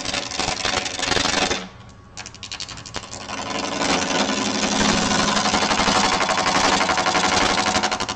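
A gouge cutting a wet, out-of-round log section spinning on a wood lathe at about 700 RPM: a rough, rapid chattering scrape as the tool meets the uneven blank each turn. It breaks off briefly about two seconds in, then comes back louder.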